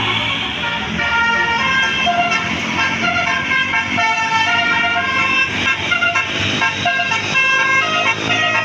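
Telolet basuri musical horn on a tour bus playing a tune, a chord of steady horn tones stepping from note to note about every half second.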